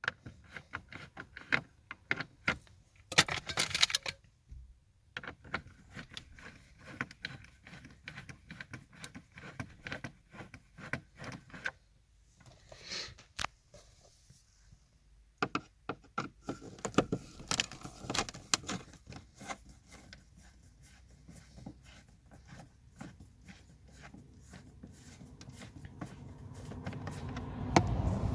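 Scattered small clicks, ticks and brief scrapes of hand work on the plastic dashboard around a car's instrument cluster, as its fixing screws are worked loose. A low rumble builds near the end.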